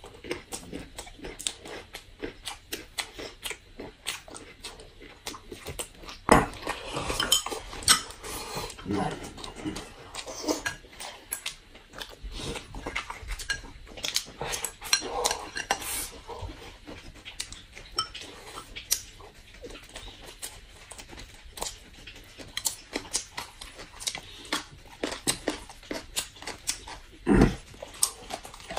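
Close-up eating sounds: chewing and slurping of rice and braised pork, with chopsticks clicking against bowls and plates in an irregular patter. A louder knock comes about six seconds in and another near the end.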